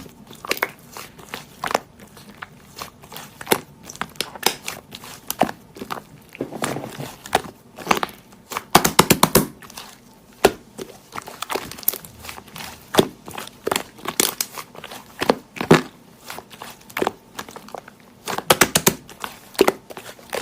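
Slime being squeezed and poked by hand, giving irregular sharp clicks and pops, with a couple of quick runs of rapid clicking.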